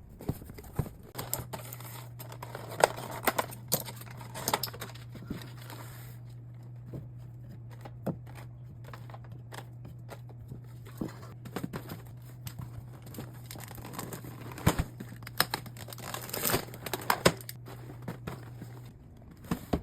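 Groceries being handled and put away: packaging crinkling and rustling, with irregular knocks and clacks of items being set down. A steady low hum starts about a second in and cuts off near the end.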